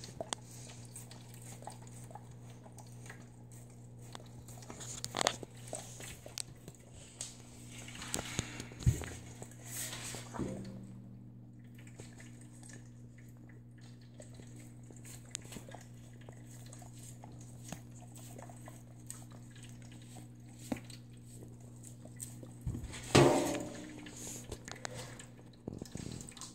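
Weimaraner licking honey off a metal baking sheet on the floor, with small wet lapping sounds and light clicks of tongue and pan, over a steady low hum. One loud knock a few seconds before the end.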